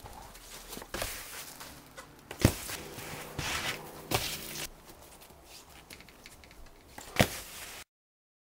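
Several sharp knocks a few seconds apart as a snowskate deck slaps down on packed snow when a rider lands, with some hiss of the board moving over snow between them. The sound cuts off suddenly near the end.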